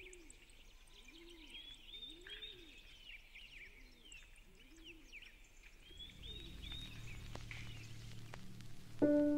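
Outdoor birdsong: several birds chirping and warbling, over a low call repeated about once a second. From about six seconds a low rumble comes in, and a piano note begins just before the end.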